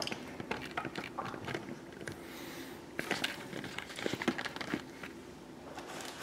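Faint, scattered clicks and rustles of plastic-wrapped model-kit parts packs being gathered and handled on a tabletop, busiest from about three seconds in.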